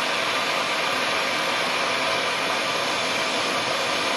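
Gas torch flame hissing steadily as it heats a carbon-steel hacksaw blade for bending.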